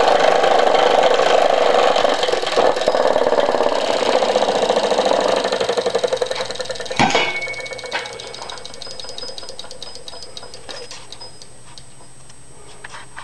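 Model electromagnet (solenoid) electric engine running fast at about 1600 RPM, its coil and contact switch making a rapid, even clicking buzz. About seven seconds in there is a sharp click, after which the ticking is much quieter and slows, thinning out toward the end.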